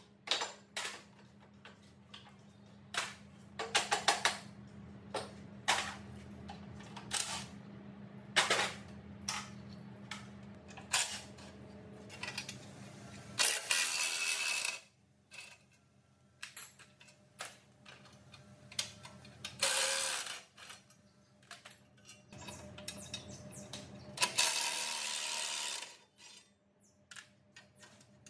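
Hand tools and metal machine parts clicking and clinking as they are handled, in scattered irregular knocks, over a steady low hum that stops about halfway through. Three short bursts of rushing noise come later, the longest about two seconds.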